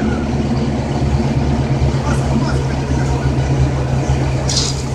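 A fire engine's engine running steadily at a constant speed, a low even hum. A brief hiss comes in near the end.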